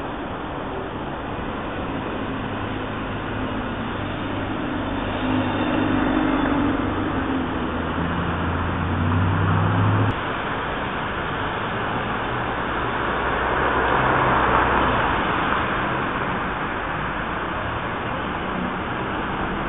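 Road traffic on a busy urban street: a steady wash of passing vehicles. A vehicle's engine hum builds over several seconds and cuts off suddenly about halfway through, and another vehicle swells past a few seconds later.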